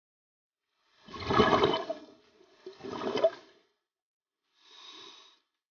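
Scuba regulator breathing heard underwater: two loud bubbling exhalations about a second apart, then a fainter breath near the end.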